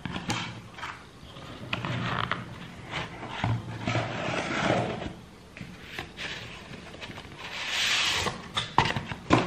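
Cardboard shipping box being handled open: flaps bending and rustling, with irregular knocks and scrapes as a boxed phone is slid out of it, a longer scraping rustle near the end followed by two sharp taps.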